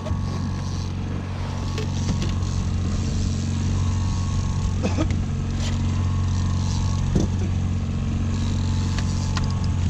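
Fishing boat's engine running steadily while trolling, a constant low drone, with a few brief knocks and clatter on the boat.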